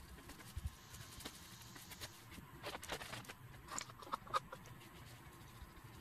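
Scattered light taps and clicks of bones and a glue brush being handled on a newspaper-covered table. A busier run of knocks and short rustles comes a few seconds in, with the sharpest tick near the end of it.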